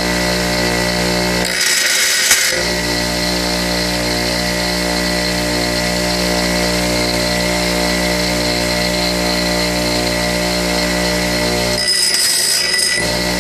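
Bench grinder running steadily, with two brief grinds of about a second each as drill bits are pressed against the wheel: a titanium-coated high-speed steel bit about two seconds in, and a carbide bit near the end. Each grind is a harsh, high hiss over the motor's hum.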